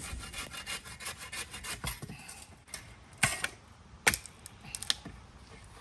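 Quick rasping strokes, something rubbed or scraped back and forth for about two seconds, then a few sharp clicks and knocks.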